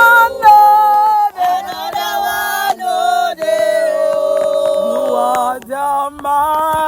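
Several voices chanting a worship song together, holding long sung notes that shift pitch every second or so.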